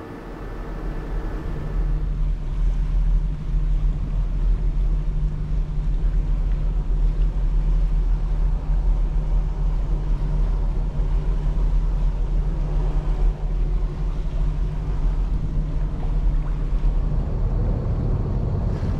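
Pershing GTX 116's MAN V12 diesel engines driving its Kongsberg Kamewa water jets, a steady low rumble as the jets push the yacht round on the spot. The rumble swells over the first couple of seconds and then holds.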